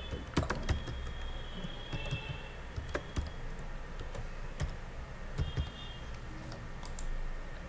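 Typing on a computer keyboard: irregular keystroke clicks, a few at a time with short pauses in between.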